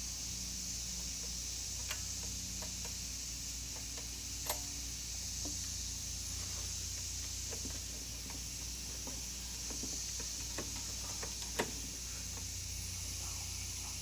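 A few sharp, scattered small clicks and taps of the throttle linkage rod and carburetor parts being handled and slid into place, two of them louder, over a steady low hum.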